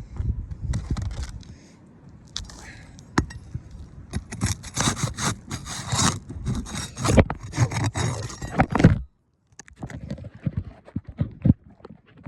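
Asphalt roof shingles scraping and rustling with a run of sharp knocks as nails are worked back into a replacement shingle. The sound cuts off abruptly about nine seconds in, then lighter scraping and taps resume.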